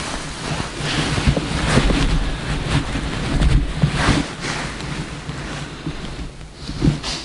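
Wind buffeting the microphone in gusts, a low rumbling hiss that is strongest in the first half and eases off about halfway through.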